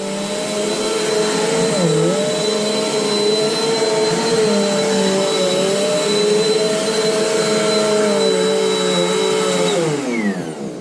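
Eureka AirSpeed bagless upright vacuum running on carpet: a steady motor whine over the rush of air. Its pitch dips briefly about two seconds in, and near the end it is switched off and winds down with falling pitch.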